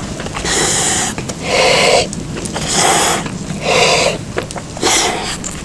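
A man puffing breath out through rounded lips, five breathy puffs about one a second, while chewing a mouthful.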